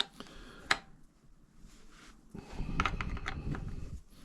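Hand tool working a T40 Torx bolt loose: two sharp metal clicks near the start, then a busier stretch of clicking and handling noise in the second half.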